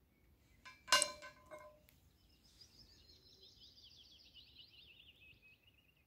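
Titanium pen parts clink together about a second in with a short metallic ring, followed by a few lighter clicks as the pen is handled. Then a songbird sings one fast trill that falls steadily in pitch over about three seconds.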